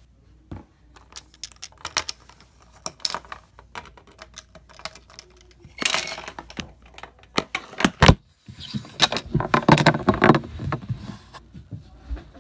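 Handling noise from a phone being held and moved: a run of small clicks and knocks, a louder rustle about six seconds in, and a longer stretch of scraping and rustling from about nine to eleven seconds.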